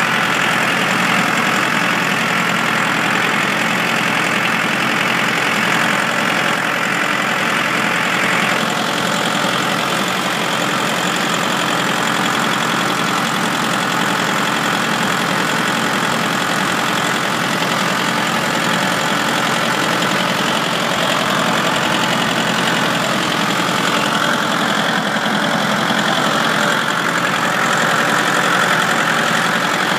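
Ford 1910 tractor's three-cylinder diesel engine running steadily, its speed and loudness holding even.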